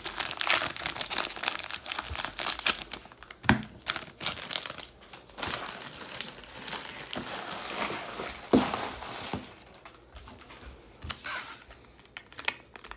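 Cellophane wrap being torn off a trading-card value box and foil card packs crinkling as they are handled, with a couple of soft knocks. Dense crackling for the first half; the crinkling thins out and goes quieter after about nine seconds.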